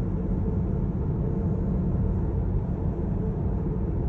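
Steady low road and tyre rumble inside the cabin of a Tesla Model 3 cruising down the road; as an electric car it has no engine note.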